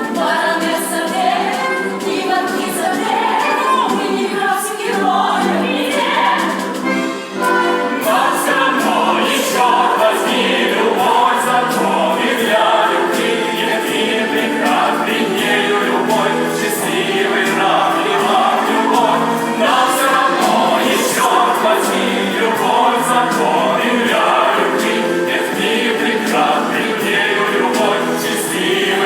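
A man and a woman singing a duet over musical accompaniment.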